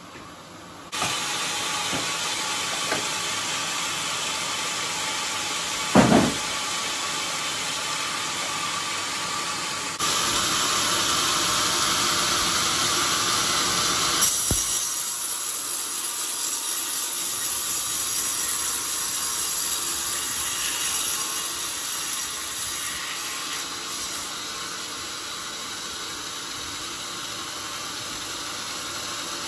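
Large band sawmill running and cutting into an old coconut-palm log: a steady, noisy rush of the blade and machinery. It jumps louder about a second in and changes again near ten and fourteen seconds. There is one heavy thump about six seconds in.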